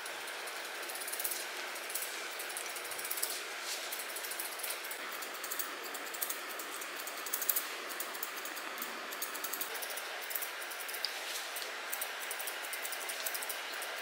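Grooming scissors snipping through a poodle's leg and paw fur in quick, irregular cuts over a steady hiss.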